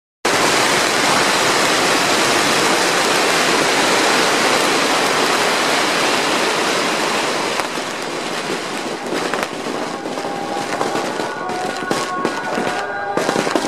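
A massive barrage of firecracker strings going off in one dense, continuous crackle. After about eight seconds it thins out into separate sharp bangs.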